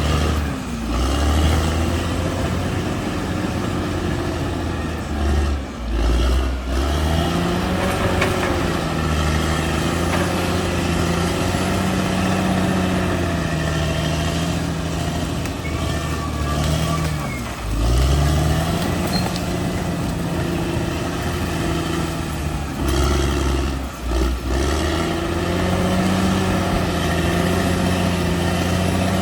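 Bulldozer's diesel engine running hard and steadily. Its pitch dips briefly and climbs back about four times.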